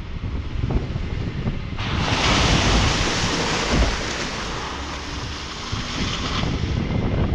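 Jeep Wrangler's tyre churning through wet mud and water, a loud splashing hiss from about two seconds in until about six and a half seconds. Beneath it are a low rumble and wind buffeting a microphone mounted on the side of the Jeep by the wheel.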